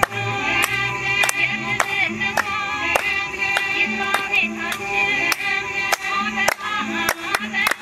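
Amharic Ethiopian New Year song: a group of voices sings over a steady, sharp beat about three times a second.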